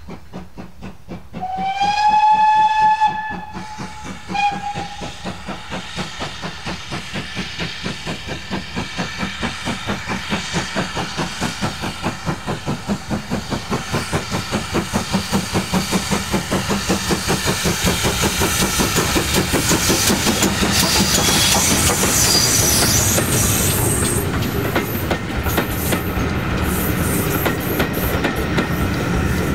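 Steam locomotive whistle: one long blast about a second and a half in and a short second toot a moment later. After it, the locomotive's steady rhythm of exhaust beats grows louder as it approaches under steam.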